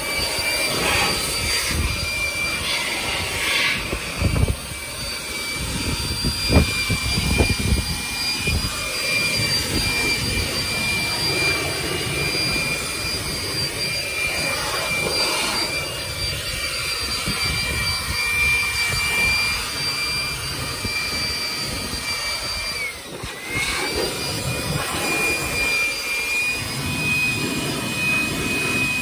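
Handheld electric air blower running steadily with a high whine, its motor pitch sagging briefly about two-thirds of the way through and then picking back up. A few knocks are heard in the first several seconds.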